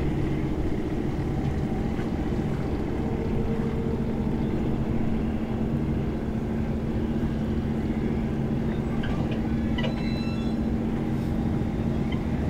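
Steady low drone of marine diesel engines from the ship and tugboats working nearby, with an even hum throughout. A few faint clicks come about nine to ten seconds in.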